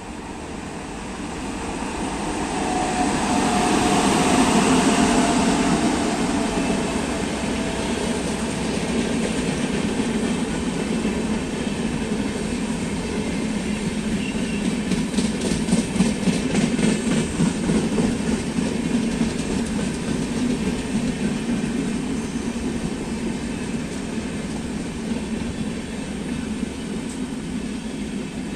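Express passenger train passing at speed: a rolling rumble that swells to its loudest about four seconds in as the head end goes by, then holds steady as the coaches roll past. A run of rhythmic wheel clatter over rail joints comes about halfway through.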